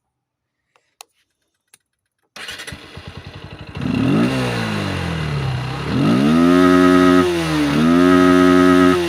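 Motorcycle engine started on the electric starter about two and a half seconds in, a few faint clicks before it. It cranks for about a second, catches, and is then revved twice in held blips that rise, hold and fall back. This is its exhaust sound before the owner changes it.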